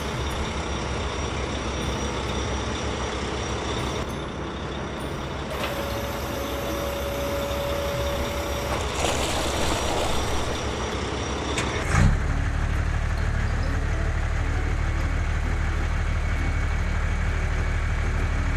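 Heavy machinery engines running steadily, with a steady whine lasting about three seconds in the middle. About twelve seconds in comes a loud thump, after which a deeper, steadier engine hum takes over.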